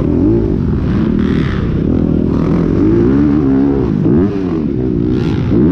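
Honda CRF250R four-stroke single-cylinder dirt bike engine, heard from a camera mounted on the bike. It revs up and down several times as the throttle is worked on and off through the track, over a heavy steady rumble.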